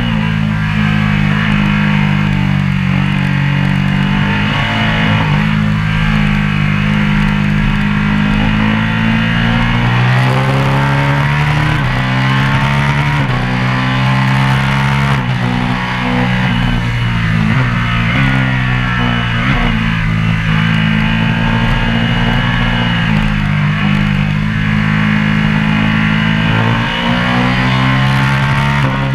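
Background music with guitar and a steady bass line that changes chords in steps.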